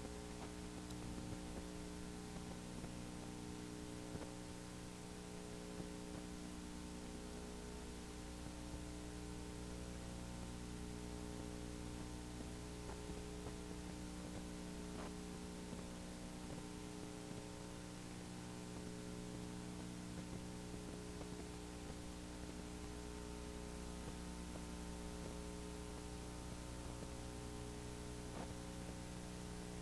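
Steady electrical mains hum, a low buzz with several overtones, over a light hiss, with no programme sound.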